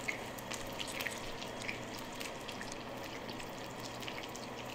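Hot oil sizzling steadily with scattered small pops and crackles as saheena fries.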